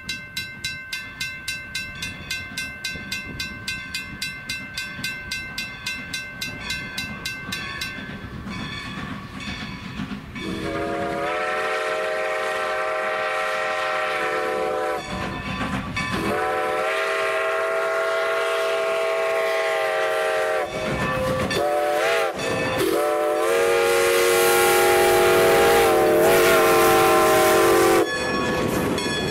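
A grade-crossing bell rings rapidly, about three strokes a second. Then the chime steam whistle of Strasburg Rail Road No. 90, a 2-10-0 Decapod, sounds the grade-crossing signal: two long blasts, a short one and a final long one. Near the end, passenger cars rumble past over the rails.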